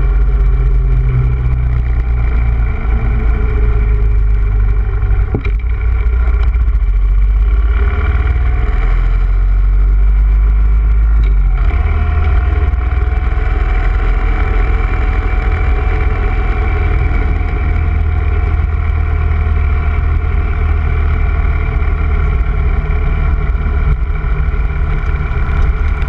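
Motorcycle engine running as the bike rides along, heard from on the bike, with a steady low rumble. The engine note changes about halfway through.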